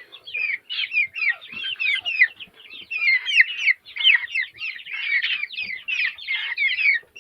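Chickens calling continuously: many short, high-pitched, falling cheeps from several birds overlapping one another.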